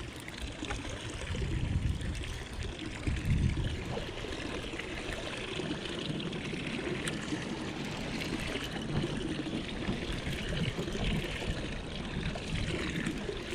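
Choppy lake water lapping and splashing against a small boat's hull, with wind rumbling on the microphone.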